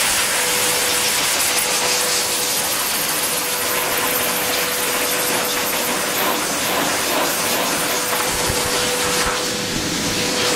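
Pet grooming blower dryer running: a loud, steady rush of air with a constant motor tone underneath.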